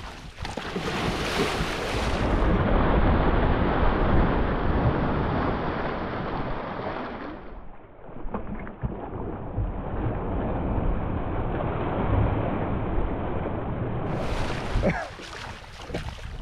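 Water churning and splashing as a large alligator swims off through choppy lake water close by, under heavy wind buffeting on the microphone. The rushing sound changes abruptly a few times.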